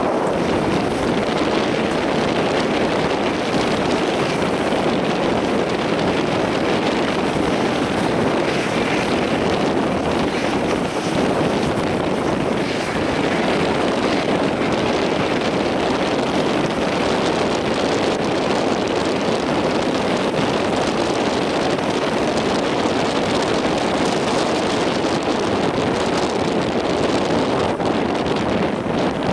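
Boeing 737-800's two CFM56-7B jet engines running steadily at idle while the airliner stands on the runway before take-off. It is an even roar with no spool-up, mixed with wind on the microphone.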